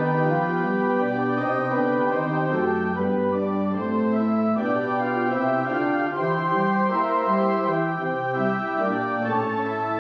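Organ playing a postlude at the end of the service: sustained chords over a bass line that moves in slow, held notes.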